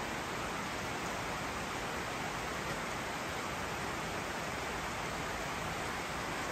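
Steady, even background hiss with no machine tones or knocks.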